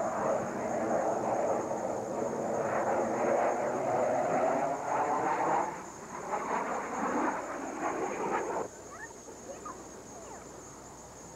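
Aircraft engine running with a steady pitched drone under a dense noise, fading somewhat past the middle and cutting off abruptly about two-thirds of the way through, leaving a quieter outdoor background with a few faint chirps.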